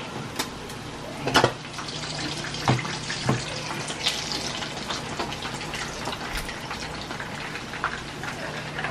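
Fish sizzling steadily in hot oil in a frying pan, with a few sharp clinks of a metal slotted skimmer against the pan as pieces are scooped out.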